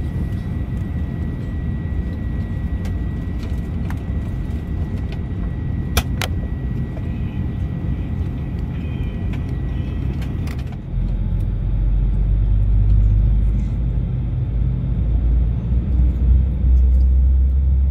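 Steady low rumble of an Airbus A321-200's jet engines at idle, heard from inside the cabin over the wing as the airliner moves on the ground after pushback, with a thin steady whine and two sharp clicks about a third of the way in. About two-thirds through, the sound changes suddenly to a louder, deeper rumble.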